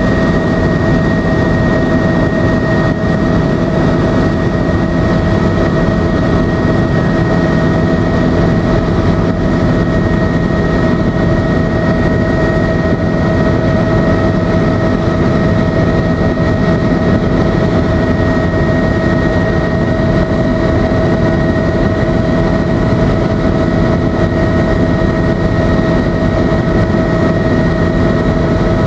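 Helicopter in cruising flight heard from inside the cabin: a steady, loud rotor and engine drone with a constant high whine over it.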